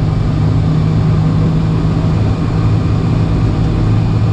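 Steady low drone of a Boeing 747's engines at low taxi power, heard inside the cabin as the jet taxis slowly. Its deeper hum grows stronger about halfway through.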